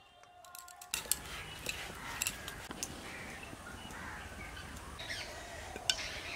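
Outdoor ambience: a steady low hiss with a few sharp clicks, and birds, crows among them, calling in the background.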